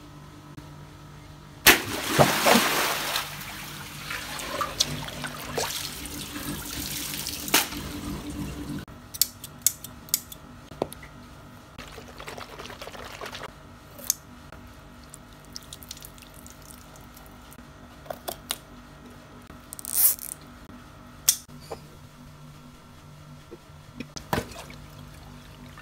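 A large water-filled latex balloon bursts about two seconds in: a sharp pop, then several seconds of water gushing and splashing out. After that come scattered rubbery handling clicks and water running from a garden hose into a smaller balloon.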